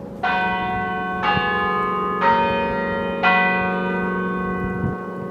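Large bells struck four times about a second apart, each stroke ringing on and overlapping the next over a steady low hum.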